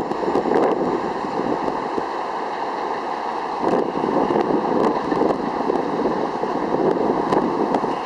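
R62A subway train pulling away along an elevated steel structure: a steady, noisy rumble of wheels on the rails with a few faint clicks.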